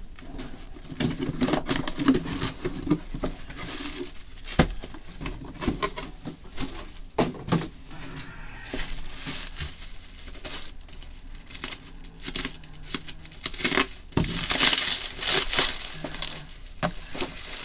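Bubble wrap crinkling and rustling as it is pulled from a card box and unwrapped from a packaged trading card, with scattered sharp clicks and a louder stretch of crinkling near the end.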